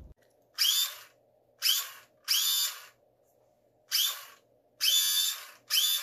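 1978 Kenner Star Wars laser pistol toy firing its electronic blaster sound in six short bursts. Each burst is a high, drill-like whirring buzz that glides up briefly in pitch at its start.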